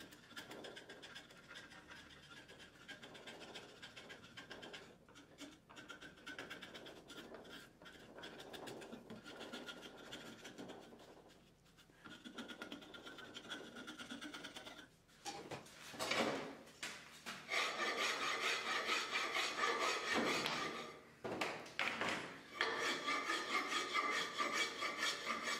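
Hand rasp scraping back and forth along a wooden axe handle held in a vise. The strokes get clearly louder about two thirds of the way in.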